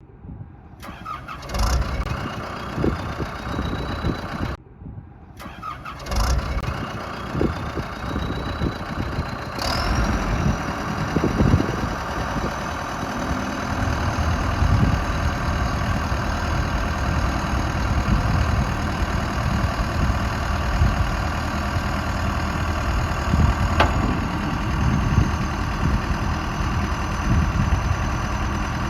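2008 John Deere 310SJ backhoe loader's diesel engine being started and then idling. A high whine rises after each of two starts in the first ten seconds, then holds steady over the running engine.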